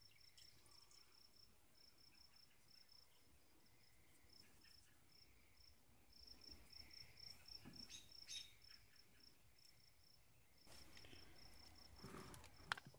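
Faint cricket chirping: short, even high pulses about three a second. Soft handling rustles come in the middle, and a sharp click is heard near the end.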